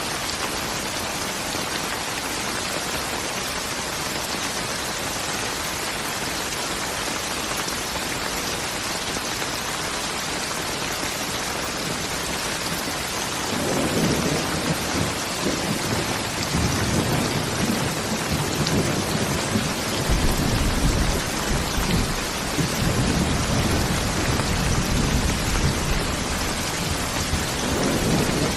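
Steady heavy rain hissing on surfaces. About halfway through, a long roll of thunder rumbles in underneath and keeps going to the end.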